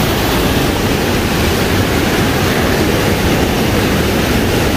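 Fast, muddy river rushing through rapids around boulders: a loud, steady rush of white water.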